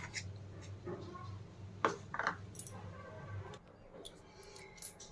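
Faint clicks and knocks of a small plastic bowl and spoon being handled over a mixing bowl, the sharpest knock about two seconds in, over a low steady hum.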